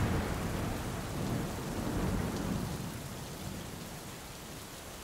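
Thunder rumbling and dying away over the hiss of rain, fading to a fainter steady hiss by about three seconds in.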